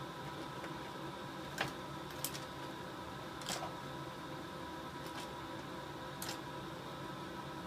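A handful of short clicks and taps as small arthroscopy instruments are handled and slipped into a plastic envelope, over a steady hum from running equipment.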